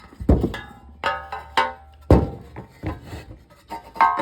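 Small-engine recoil starter being pulled by hand and rewinding on its newly replaced rope: the rope rasps out and back, with a few sharp clacks that ring briefly like metal.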